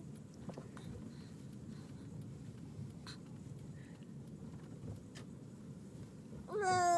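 Faint low rustling with a few soft clicks, then near the end an infant starts to cry in a rising, wavering wail.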